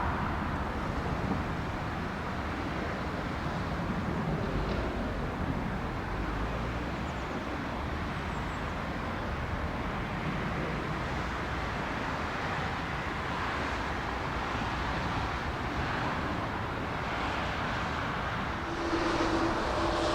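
Jet engine noise of a Boeing 777-300ER airliner on landing, a steady rumble; near the end it grows louder and a steady two-note whine comes in.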